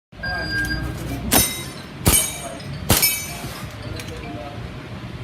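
Army Armament R30 Wilson Combat 1911 gas blowback airsoft pistol, run on green gas, firing three sharp shots a little under a second apart, with the metallic clack of the slide cycling each time, and a fainter shot near the end.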